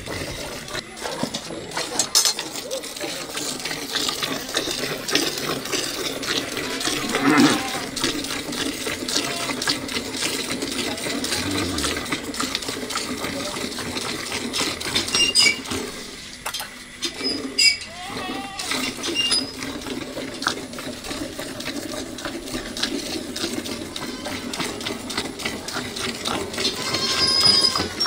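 Hand milking a cow into a metal pail: fast, rhythmic squirts of milk jetting from the teats and hissing into the frothy milk already in the pail.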